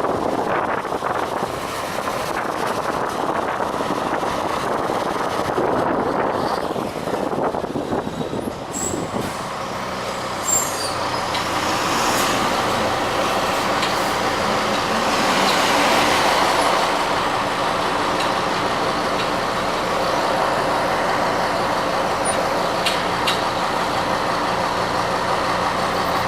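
Mercedes-Benz OH-1628L bus engine (Busscar El Buss 340) running with a loud growl. The first part is mostly rushing noise; then a steady engine hum settles in and grows louder about two thirds of the way through.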